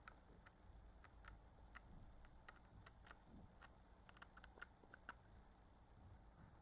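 Near silence with faint, scattered light clicks and ticks, typical of small objects such as a booklet or disc case being handled.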